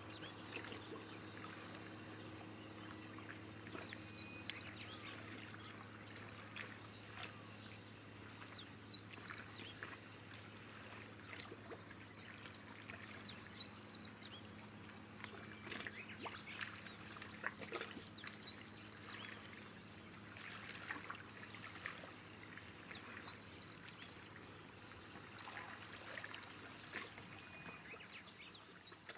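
Faint small-wave water lapping and trickling at the shoreline, with many small scattered clicks and ticks over a steady low hum.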